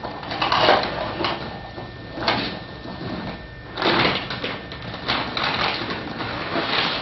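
Irregular rustling and knocking of things being handled, in short noisy bursts with a few sharp clicks.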